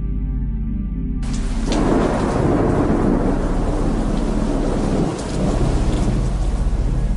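Thunder rumbling with heavy rain, coming in suddenly about a second in.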